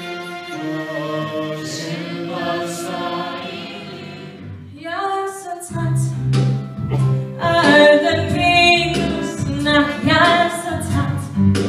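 A choir singing held chords that fade; about five and a half seconds in, the sound changes abruptly to a different song, with women singing short rhythmic phrases over a strong low part.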